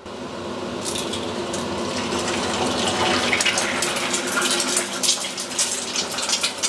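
An egg frying in hot oil in a frying pan: a steady sizzle that starts as the egg goes in, with crackling pops of spitting oil that come more and more often.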